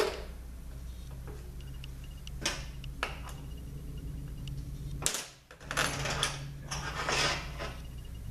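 Hand tools and small metal parts clicking and tapping against a transmission valve body on a metal workbench: a few separate taps, then a longer stretch of rubbing and clattering near the end. A steady low hum runs underneath.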